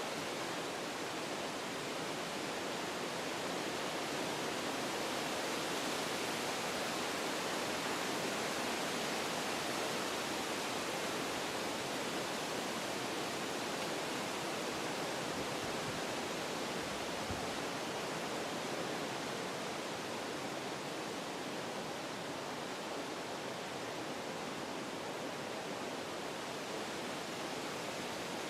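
Wind blowing through forest trees, a continuous rushing that swells a little in the first few seconds and then eases slightly.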